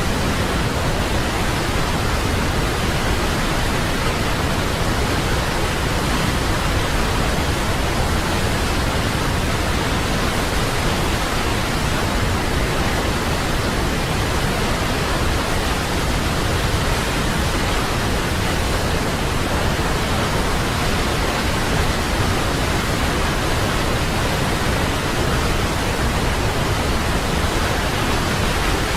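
Waterfall: a steady, unbroken rush of falling water with no breaks or changes, heaviest in the low end.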